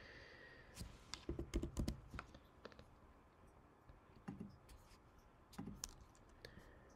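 Faint, irregular clicking and tapping of a computer keyboard and mouse, with a quick cluster of clicks about a second and a half in and single clicks after.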